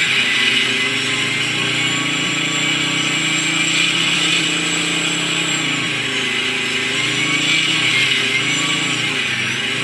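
Synthesised Challenger 2 tank engine sound played through an RC tank's TBS Mini sound unit and speaker, running steadily with a hissy, rattling top. About six seconds in, and again near the end, its pitch drops and climbs back as it moves between idle and revs.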